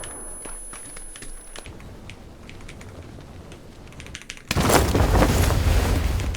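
Key presses clicking on a GravaStar Mercury V75 Pro Hall-effect magnetic-switch keyboard during gameplay, a few sharp clicks at a time. About four and a half seconds in, loud in-game gunfire and impacts suddenly start over the keystrokes.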